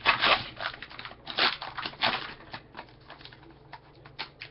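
Wrapping of a trading-card box crinkling and tearing as it is opened, with a few loud rips in the first two seconds and then lighter rustles and clicks.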